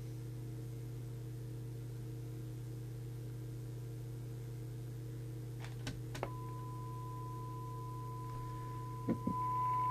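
A steady low hum, then a few clicks about six seconds in and a single steady test tone from the signal generator comes through the CB radio's speaker, getting louder near the end as the receiver's sensitivity is checked.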